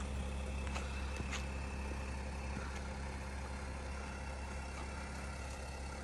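Mercedes Sprinter van's engine idling: a steady low hum.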